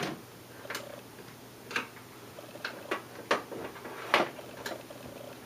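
Irregular small clicks and taps of a plastic cable connector being worked by hand, about seven in five seconds, over a faint steady hum.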